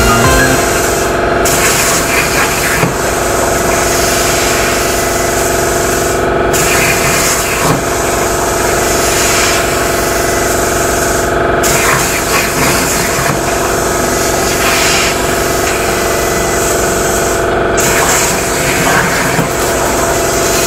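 Steady hiss of air with a steady machine hum beneath it, from the CNC plasma cutting setup with the torch not firing. The hiss dips briefly about every five to six seconds.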